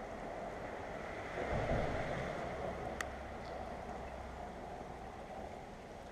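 Creek water running over rocks, a steady rushing. From about a second and a half in, a low rumble joins it for a few seconds, and a single sharp click sounds about halfway through.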